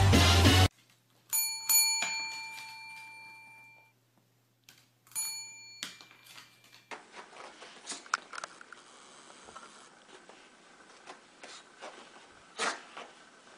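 A small bell struck twice in quick succession, ringing and fading over a couple of seconds, then struck once more a few seconds later. After that come faint scattered taps and rustles in a small room.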